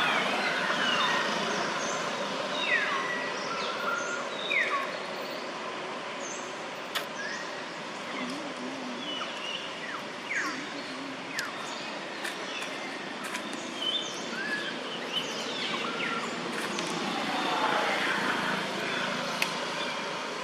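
Many short, high animal calls, each sweeping quickly downward in pitch, come scattered throughout over a steady outdoor background hiss. A denser cluster of calls comes near the end.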